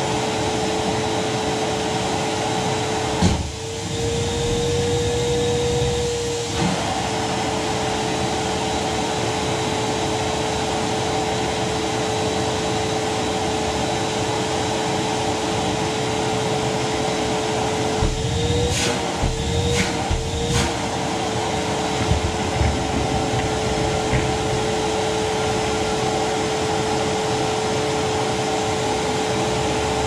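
Rowenta vacuum cleaner running steadily with a constant motor hum and rush of air. A few seconds in, its pitch rises a little for about three seconds. Around two-thirds of the way through, the pitch wavers and a few knocks come through.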